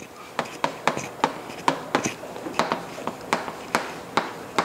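Chalk writing on a chalkboard: uneven sharp taps of the chalk against the board, about three a second.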